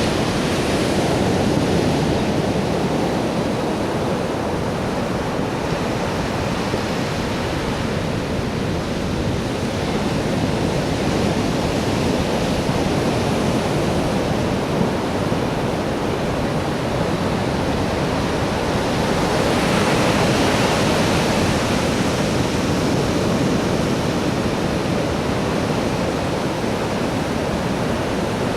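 Steady rushing noise with no bangs or crackles, swelling slightly about two-thirds of the way through.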